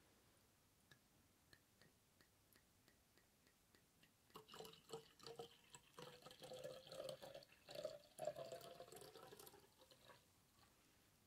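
Sake glugging from a glass bottle into a narrow-necked ceramic tokkuri flask, starting about four seconds in; the filling tone rises in pitch as the flask fills, and the pouring stops near the end.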